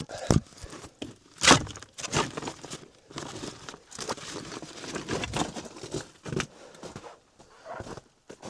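Irregular knocks and crinkling of firewood and paper being handled to lay a fire in a wood stove, the sharpest knock about one and a half seconds in.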